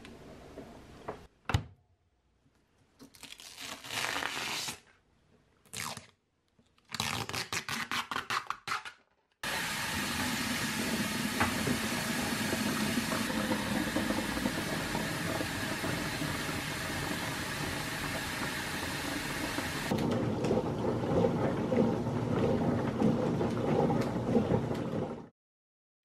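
Countertop dishwasher starting up: a click, a few short bursts of noise and a quick run of even pulses, then from about nine seconds in a steady rush of spraying water. Around twenty seconds the water sound turns lower and churning, and it cuts off abruptly near the end.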